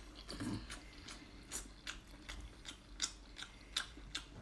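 Close-miked chewing of a mouthful of octopus: a faint run of short wet mouth clicks and smacks, about two or three a second at uneven spacing.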